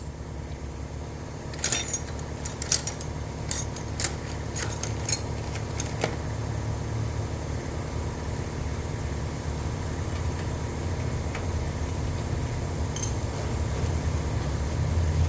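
Light metallic clicks and clinks of a 10 mm wrench working on a small-engine carburetor's mounting nuts, several in the first six seconds, over a steady low hum.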